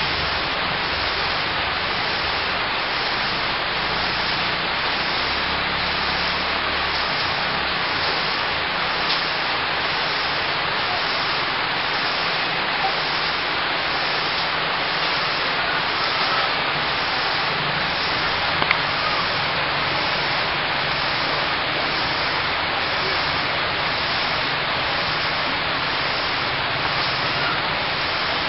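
Steady tropical rain falling on foliage and the house: a dense, even hiss, with a few faint ticks of individual drops.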